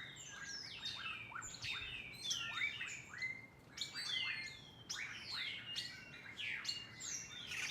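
Birds chirping: many quick, high calls that slide down in pitch, several a second and overlapping one another.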